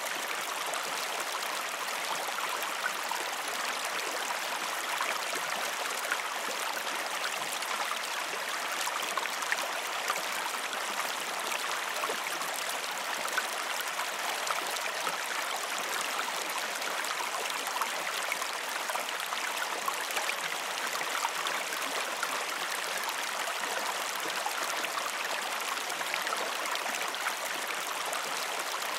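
Creek water flowing steadily: an even rush with many small splashes throughout.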